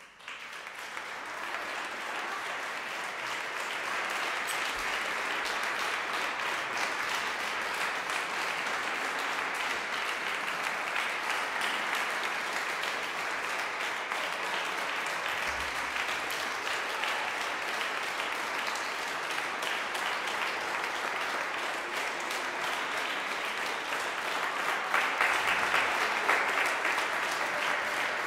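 Audience applause breaking out of silence at the end of a performance: the clapping starts suddenly, fills in over the first second or two, then holds steady and grows a little louder near the end.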